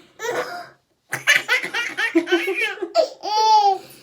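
Baby laughing hard: a run of belly laughs from about a second in, ending in a long, high squeal.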